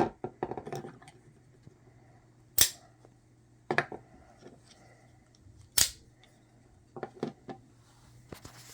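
Switchblade knives being handled, with sharp clicks and small knocks as their blades are folded shut. Two louder snaps stand out, about a third of the way in and just past halfway.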